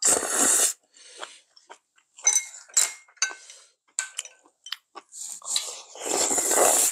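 A loud slurp of hot dumpling-hotpot broth drunk from a bowl, then scattered light clinks of chopsticks and spoons against bowls, and a second long slurp near the end.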